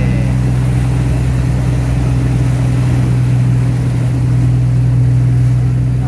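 Fishing boat's inboard engine running at a steady low drone under way, with the rushing hiss of the wake and waves.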